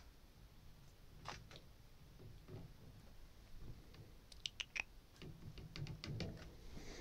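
A pet rat licking the metal sipper tube of a water bottle, making faint scattered clicks with a quick run of them about four and a half seconds in. Low rustling of cage handling follows.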